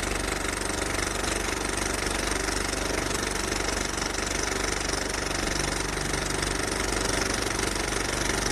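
A motor running steadily at a constant level, with a fast even pulse.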